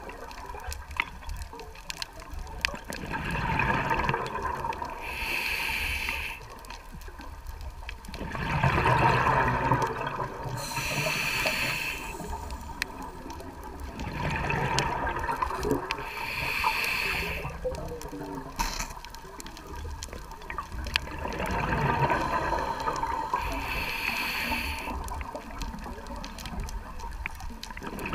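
A scuba diver breathing through a regulator underwater. A short hiss on each inhale is followed by a longer gush of exhaled bubbles, about every six seconds, four breaths in all.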